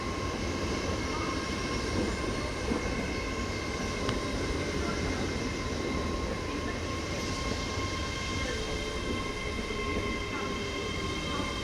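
Train at the station with its engine or traction equipment running steadily: a constant low rumble with steady high whining tones over it.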